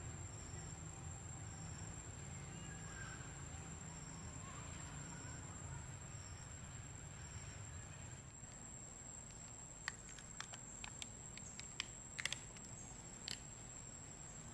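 Faint outdoor ambience of insects: a high chirp repeating about once a second and a steady high whine over a low rumble. Past the middle a few sharp clicks and crackles follow one another.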